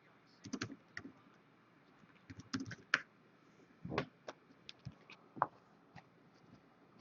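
A string of irregular light clicks and taps, with a duller tap or two about four seconds in: small handling sounds on a table.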